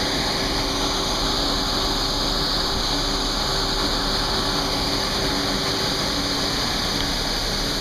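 Gleaner S78 combine harvester running steadily while harvesting corn: a constant, even hiss of machinery with a faint low hum underneath.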